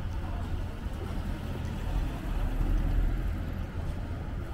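City street ambience: a steady low rumble of light car traffic on the road.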